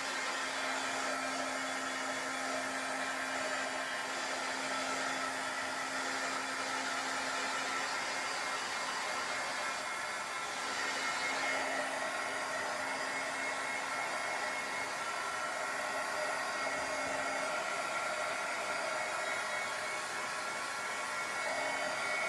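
Handheld blow dryer running steadily on a wet collage journal page to dry the glue, an even whirring blow with a faint steady hum under it.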